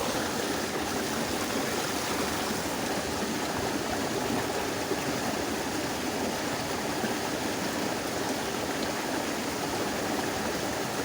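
Steady rush of flowing stream water, running water with no breaks or changes.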